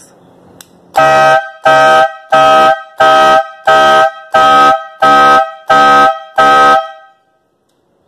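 Pair of chrome trumpet air horns, blown by a small electric compressor that a flasher relay switches on and off, sounding a car-alarm pattern of nine short blasts about one and a half per second. The blasts start about a second in and stop near the end. Each blast is very loud and carries two horn pitches together. The pulsing shows the flasher-and-relay alarm circuit works.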